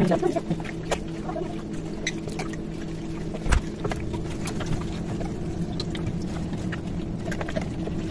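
Gloved hands spooning and rubbing marinade over a raw whole chicken in a tray: scattered clicks, taps and wet handling sounds, with a spoon knocking in a glass jug. A steady low machine hum runs under it, and a single low knock about three and a half seconds in is the loudest sound.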